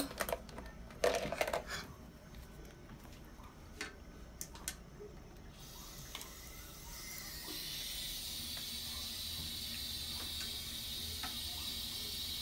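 Bathroom sink faucet turned on about halfway through, a thin stream of tap water running steadily into the basin as a hiss. Before that, a few light clicks and knocks.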